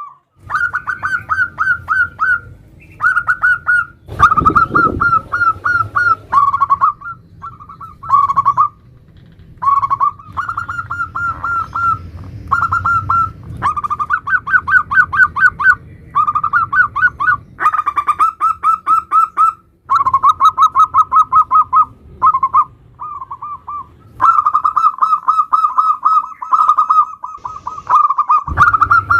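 Zebra dove (perkutut) singing in the nutut style: phrase after phrase of rapid staccato cooing notes, each run a second or two long with short pauses between. A low thump sounds about four seconds in.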